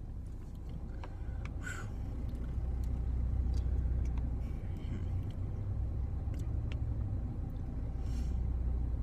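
Low steady rumble of a car heard from inside its cabin, growing a little louder about three seconds in, with a few faint rustles.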